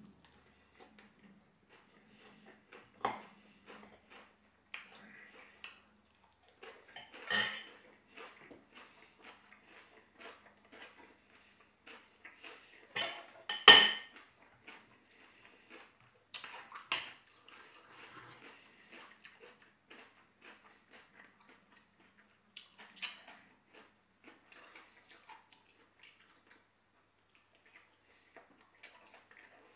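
Metal knife and fork clinking and scraping on a ceramic dinner plate while cutting food, in irregular short strokes, the loudest clatter about halfway through, with chewing between.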